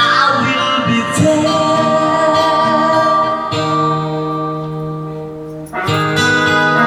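Background music: a slow love ballad with guitar between sung lines. It thins out about five seconds in, and the next phrase comes in just before the end.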